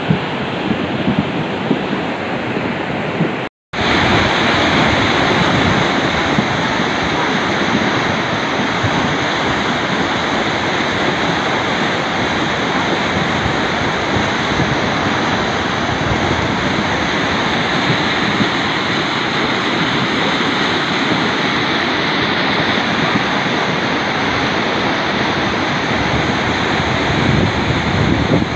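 Muddy floodwater of the Ourika river rushing in a steady, loud torrent, the river swollen by heavy thunderstorm rain. The sound cuts out completely for a moment about three and a half seconds in.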